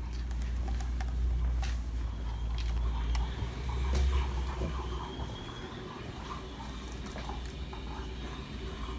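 Faint handling noise: scattered light clicks and rustles over a low rumble that fades out about five seconds in.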